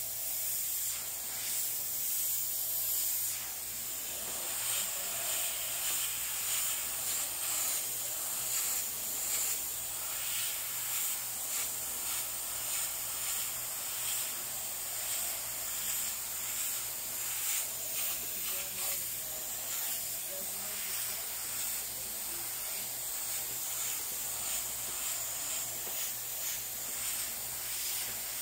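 Airbrush hissing as it sprays paint onto a T-shirt. The hiss swells and eases over and over as the artist works the trigger.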